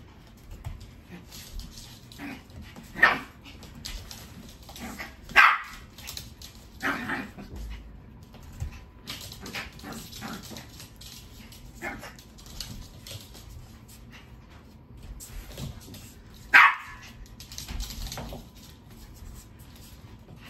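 Pomeranian barking during a chase game: a few short, loud barks spread out, with quieter yips between them. Faint tapping and scuffling of paws on the hardwood floor between the barks.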